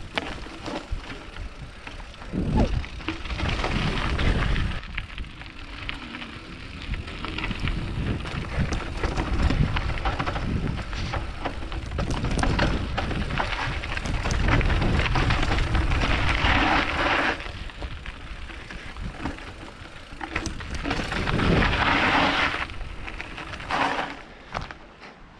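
Mountain-bike tyres rolling and scrubbing over a rough dirt trail with roots and rocks, the bike rattling over the bumps, under heavy wind rumble on the bike-mounted microphone. Two louder hissing spells of tyre noise come in the second half.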